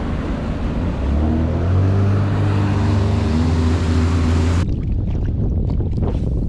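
Sea-Doo jet ski engine running under way, with heavy wind on the microphone. About a second in the engine note rises, then holds steady. About two-thirds of the way through, the engine and rush stop abruptly, leaving lighter, gusty wind noise.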